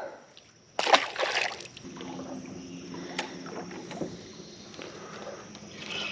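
A released panfish drops into the river with a splash about a second in. After it comes a low, steady hum from the boat's electric trolling motor, with small clicks from the rod and spinning reel being handled.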